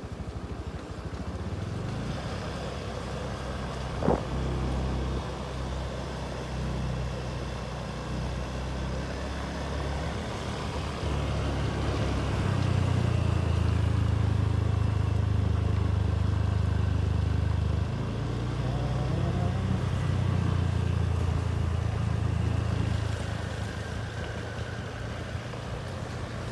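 Motorcycle engine running under way, its note stepping up and down with the revs and loudest for several seconds in the middle. One sharp knock about four seconds in.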